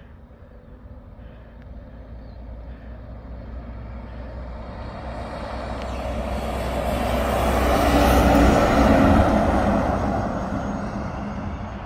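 Articulated truck hauling a container trailer approaching and passing: engine and tyre noise grow steadily to a peak about eight to nine seconds in, then fade as it moves away.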